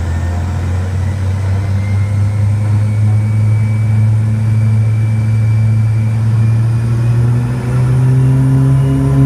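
Cabin drone of a de Havilland Canada DHC-6 Twin Otter's PT6A turboprop engines and propellers in flight: a loud, steady deep hum that rises a little in pitch near the end.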